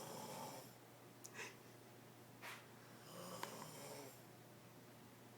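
A woman snoring in her sleep: slow, long snoring breaths about three seconds apart, with short sharp snorts in between.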